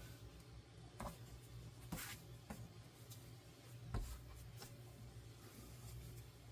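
Hands kneading sourdough dough on a floured silicone mat: faint rubbing with a few soft pats and thumps, the loudest about four seconds in.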